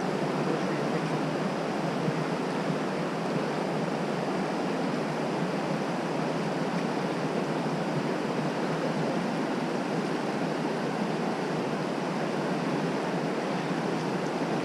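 Steady rush of fast-flowing river whitewater, an even, unbroken hiss.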